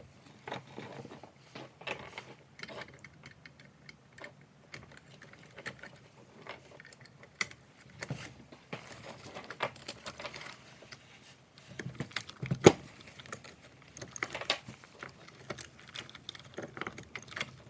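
Saw chain and guide bar of a Stihl MS 261 C-M chainsaw being handled while the chain is fitted back onto the bar: irregular small metallic clicks and clinks of chain links, with one sharper knock about two-thirds of the way through.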